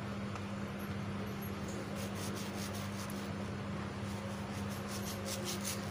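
Kitchen knife slicing and scraping through mango skin and flesh in short strokes: a cluster about two seconds in and a quicker run of about five near the end. A steady low hum underlies it.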